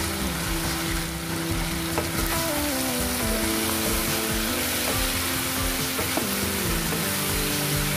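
Pork riblets sizzling in hot oil in a pan while being stirred with a wooden spatula, the spatula clicking against the pan a couple of times. Background music plays underneath.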